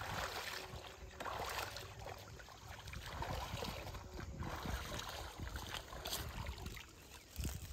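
Water sloshing and splashing as a fishing net is dipped and swished through lake water by hand, in several strokes about a second long each.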